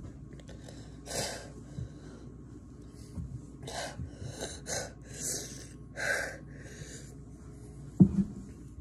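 A person gasping and breathing hard in short, hissing breaths through the mouth from the burn of very hot sauce. A sharp thump about eight seconds in.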